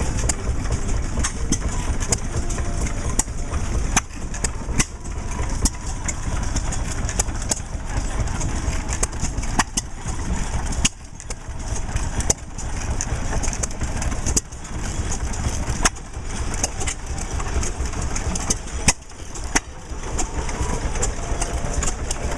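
A row of Economy hit-and-miss stationary gas engines running together, their firing strokes making sharp, irregularly spaced exhaust pops over a low rumble as each engine fires and coasts out of step with the others.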